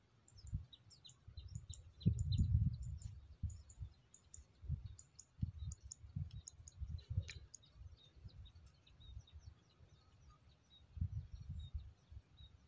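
Small birds chirping in quick short notes over and over, with irregular low thumps on the microphone, loudest about two seconds in.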